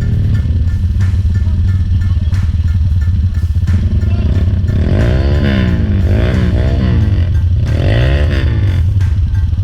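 Trail motorcycle engine running under load, revved up and down several times in the second half.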